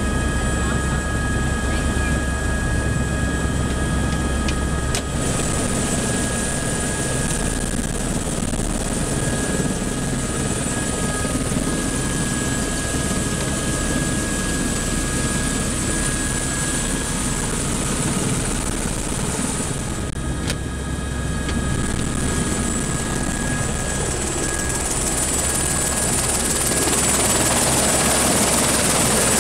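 Helicopter engine and rotor running steadily, heard from inside the cabin, with a constant high whine over the rotor noise. It grows louder near the end.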